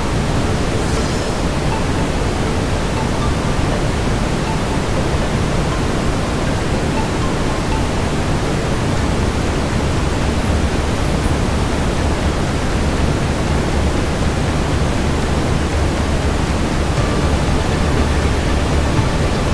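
Steady brown noise, deep and even, with a few faint crackles from a fireplace.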